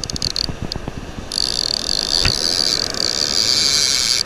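Bait clicker of a vintage Penn No. 77 Sea Hawk casting reel rattling as the spool turns while a fish is on the line. It comes in a few short bursts, then from about a second in runs as a steady high buzz.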